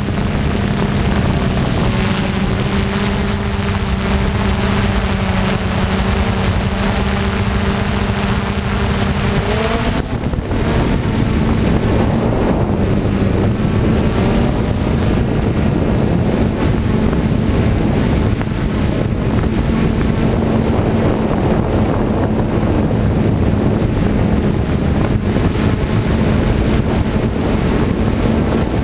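Quadcopter's electric motors and propellers humming steadily, with wind buffeting the onboard camera's microphone. About ten seconds in the pitch rises sharply, then the hum carries on slightly higher and rougher.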